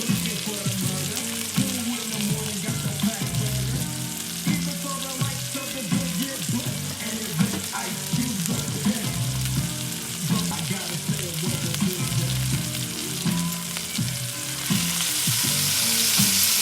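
Chicken frying and sizzling, with the sizzle growing louder near the end, over background music.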